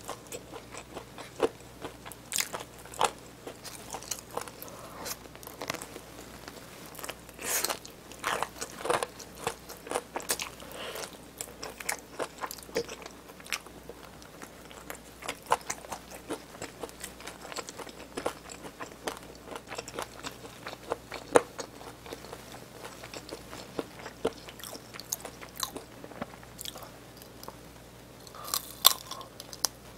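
Close-miked biting, crunching and chewing of cheese-seasoned fried chicken drumsticks, as irregular sharp crunches with wet chewing between them and a few louder crunches near the end.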